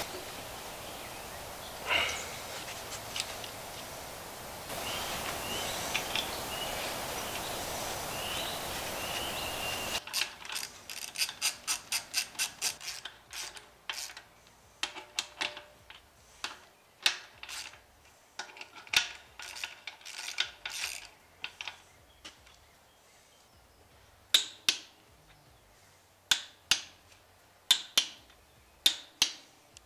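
Ratchet wrench clicking as the bearing-cap bolts on a differential carrier are run down and torqued. It comes in quick runs of clicks about a third of the way in, then as slower single loud clicks near the end while a long torque wrench is swung. Before that there is a steady hiss with a few knocks of metal parts being handled.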